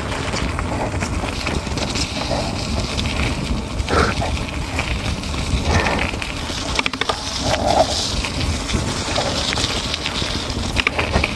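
Riding noise from an electric mountain bike on a gravel lane: wind buffeting the microphone and tyres crunching over gravel, a steady rumbling hiss with scattered short bumps.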